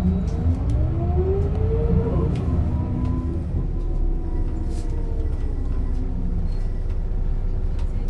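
Setra S 315 UL bus engine and ZF gearbox under way: the engine note rises for about two seconds, drops back as the gear changes, then runs on steadily with a thin whine.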